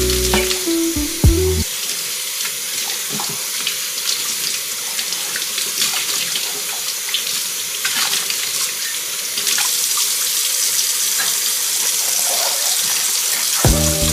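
Water running from a tap into a sink as a steady hiss, with small scattered knocks, for about twelve seconds. Soft music plays briefly at the start and comes back near the end.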